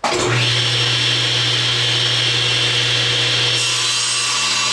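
Table saw switched on and running with its blade tilted to 45 degrees, a steady motor hum under a high whine. A little over three and a half seconds in, the blade begins cutting a small relief into a block of ABS plastic, adding a brighter hiss.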